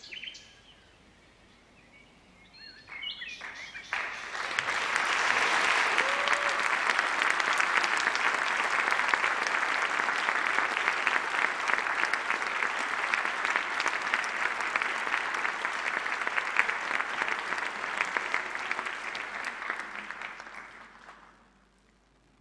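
Theatre audience applauding. The clapping starts about four seconds in, holds steady, and dies away near the end.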